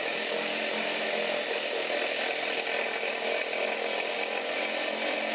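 Handheld power tool spinning a transmission mount bolt through its bracket into the tunnel nut, a steady whir that holds unchanged.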